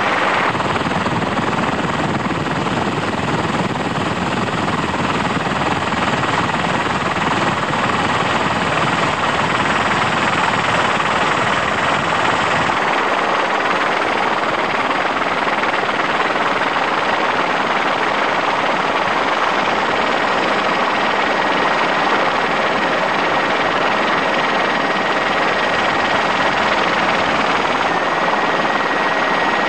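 Steady helicopter noise heard from on board the aircraft, with a faint steady high whine. The deep rumble drops away about halfway through.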